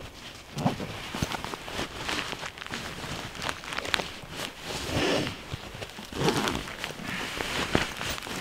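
A backpack being handled and packed by hand: its fabric rustles in several swells, with scattered sharp clicks from its straps and fittings.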